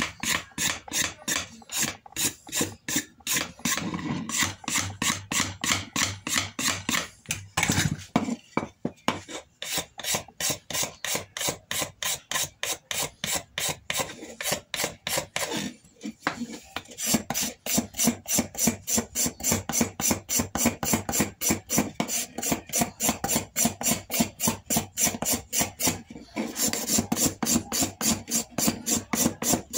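Hand scraper drawn quickly over the imbuia-wood stock of a Winchester rifle, stripping the old surface in short rasping strokes, about three or four a second, with a few brief breaks.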